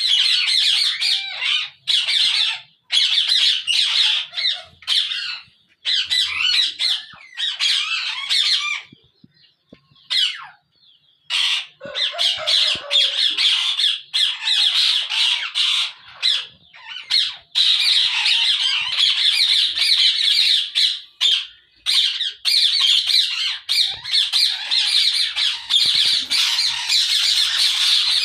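A colony of ringneck parakeets screeching and chattering, many shrill calls overlapping, with a brief lull about nine seconds in before the calling picks up again.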